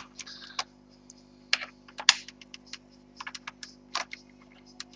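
Irregular sharp clicks and light taps from small parts being handled on a work surface: loose screws and the keyboard's plastic case being moved.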